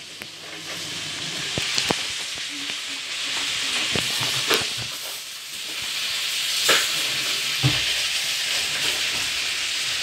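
Samsung EcoBubble 8 kg front-loading washing machine running a wash, its drum turning and the laundry swishing inside. The swishing is a steady hiss that eases briefly about halfway, with a few light knocks and one low thump near the end.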